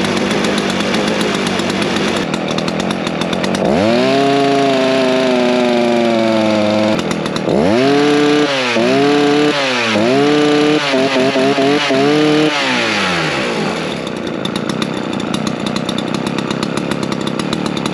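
Large Dolmar two-stroke chainsaw idling fast and rough, with its idle set too high. From about four seconds in it is revved several times with the throttle, then it settles to a lower, quieter idle for the last few seconds once the idle speed is turned down.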